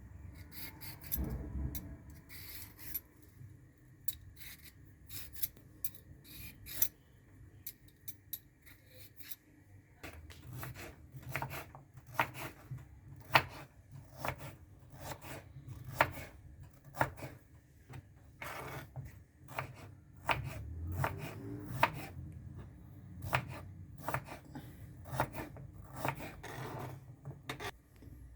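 Kitchen knife cutting vegetables on a cutting board: irregular sharp strokes, about one or two a second, more frequent in the second half.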